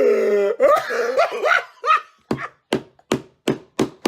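A man laughing uncontrollably: a drawn-out voiced laugh, then a run of short, rhythmic laughing bursts about three a second.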